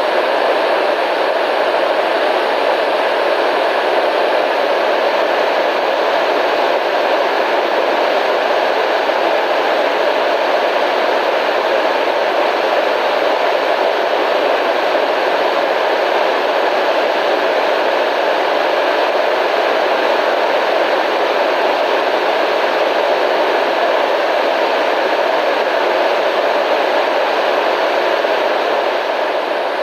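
Constant analog radio/TV static: a steady, even hiss that does not change, fullest in the middle range with little deep rumble or sharp top.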